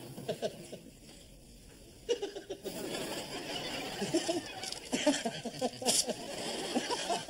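Studio audience laughing: after a short lull it breaks out about two seconds in and carries on as a sustained wave of many overlapping laughs.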